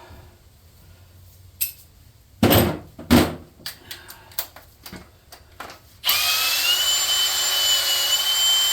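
Light clatter of tools being handled, then about six seconds in a shop tool runs for about three seconds with a loud, steady whirring hiss and a high whine, and stops.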